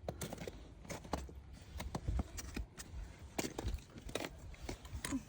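Footsteps climbing over snow and ice: an irregular series of short scuffs and knocks over a low rumble.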